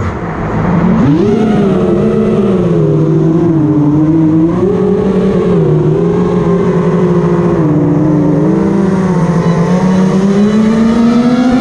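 FPV quadcopter's brushless motors and propellers whining on a 4S battery, the pitch dipping and rising with the throttle and climbing near the end.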